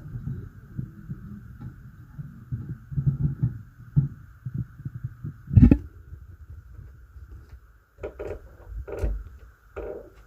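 Muffled thuds and knocks from an upstairs apartment, heard through the ceiling, with one loud bang a little past halfway and a few more knocks near the end, over a steady hum.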